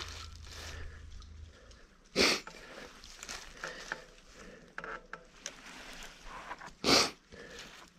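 Low rumble of a mountain bike rolling down a dirt trail, which stops about one and a half seconds in. Then come two short, loud breaths close to the microphone, about two and seven seconds in, with light scuffs and clicks between them.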